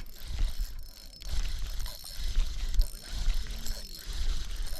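Fishing reel being wound in while playing a hooked jewfish (mulloway), with a ratcheting, gear-like clicking and an uneven low rumble underneath.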